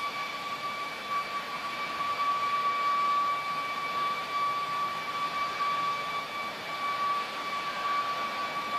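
Very loud, unexplained drone: a steady whine with a fainter higher tone above it, over a rushing hiss, holding the same pitch throughout.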